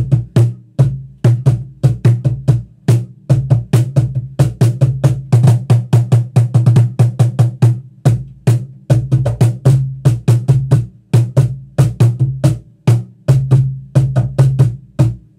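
Cajon played by hand in a rapid groove of bass thumps and sharper slaps, each hit with a strong low ring. The drum is amplified through a WP02 cajon pickup and heard from studio monitor speakers as well as acoustically.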